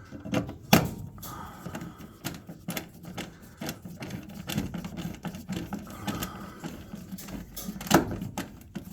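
Irregular metallic clicks, knocks and rattling as screws are driven with a nut driver into a furnace's sheet-metal panel. The panel is resisting the fit. The two sharpest knocks come about a second in and near the end.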